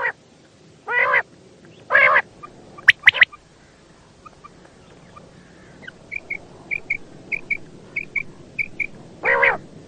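Quail calling: three short, harsh, raspy calls a second apart, then a run of short, high paired chirps, about one pair every second or so, and another harsh call near the end.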